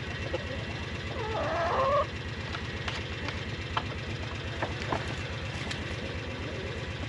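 An engine idling steadily with a fast, even low pulse. About a second in comes a louder rasping noise lasting about a second, with a few light clicks after it.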